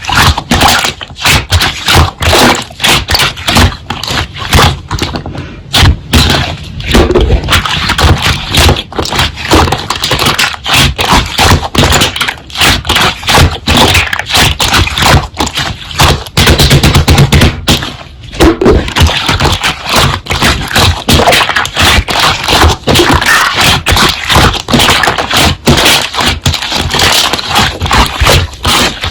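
Slime being pressed and squished by hand: a fast, dense run of sticky clicks and pops from trapped air, with brief pauses between handfuls.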